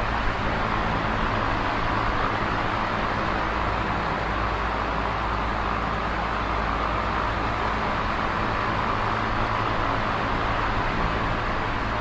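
Electric fan running steadily: a constant rush of air with a low motor hum underneath.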